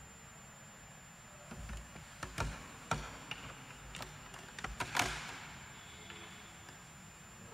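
A scatter of irregular knocks and clicks over a few seconds, the loudest about five seconds in, each ringing on in a long echo as in a large stone hall.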